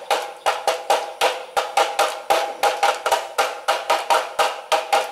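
Two thin wooden sticks drumming on a plastic jar in a steady beat, about three sharp knocks a second, each with a short hollow ring.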